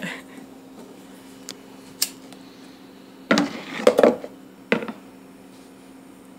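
Handling knocks and clicks of objects on a plastic cutting board, a sharp knock near the start, then a cluster of clicks and scrapes a little past three seconds in as a disposable lighter is struck and lit. A steady low hum runs underneath.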